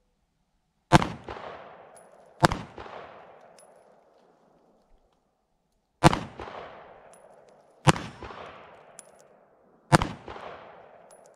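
Diamondback DB9 9mm subcompact pistol fired five times at an unhurried pace, the first two shots about a second and a half apart, then three more a couple of seconds apart; each sharp report is followed by an echo that fades over a second or two.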